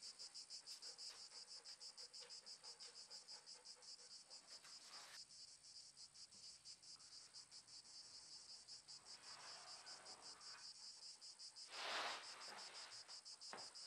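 Faint chirping of insects in a steady rhythm of about four to five pulses a second, with a short rustle near the end.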